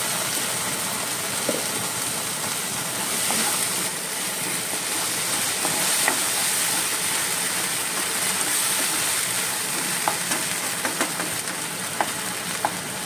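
Ground ambotik masala frying in oil in a kadai with onions, tomatoes and green chillies: a steady sizzle, with a few light clicks near the end as it is stirred.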